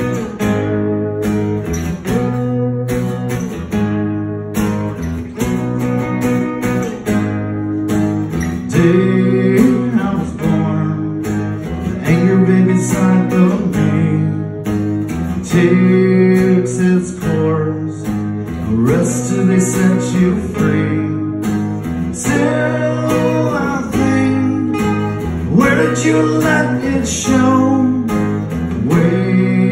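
Two acoustic guitars strummed together in a steady rhythm, with a man singing lead over them from about eight seconds in.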